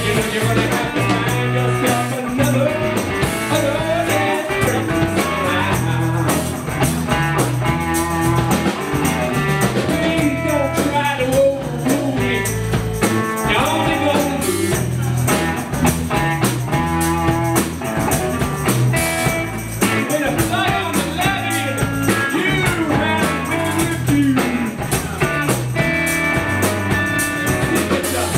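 Live blues-rock band playing: electric guitar, bass guitar and drum kit with a steady beat.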